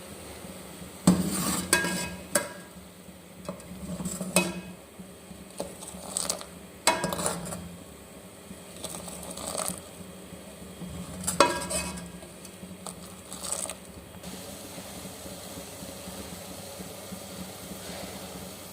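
Metal kitchen utensils clinking against a cooking pot of milk tea: about ten irregular sharp clinks, each with a short ring, over a faint steady hum. The clinks stop after about fourteen seconds.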